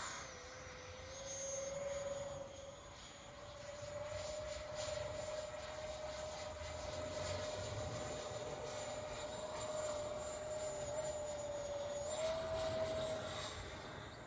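Twin 80 mm electric ducted fans of a scratch-built RC jet, driven by inrunner motors, running with a steady high whine whose pitch wavers slightly, rises briefly near the end and then fades out.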